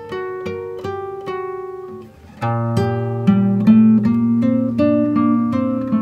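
Background instrumental music of plucked-string notes playing a melody. The notes thin out and dip for a moment, then return fuller with sustained low bass notes about two and a half seconds in.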